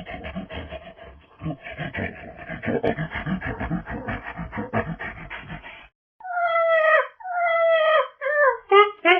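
Proboscis monkey vocalising. First comes a fast, rhythmic pulsing grunt run lasting about six seconds. After a brief gap, two long nasal honks fall in pitch, followed by a quick series of short honking calls.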